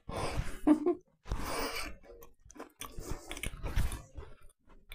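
A person biting into a blueberry scone and chewing it, close to a clip-on microphone: a bite at the start, then irregular stretches of chewing with short pauses.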